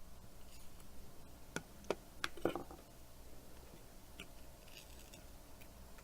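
Small clicks and taps of hands and tools handling smartphone parts: four sharp clicks in quick succession between about one and a half and two and a half seconds in, then a few fainter ticks.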